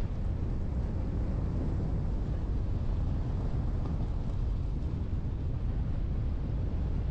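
Steady low rumble of a vehicle on the move, road noise mixed with wind on the microphone.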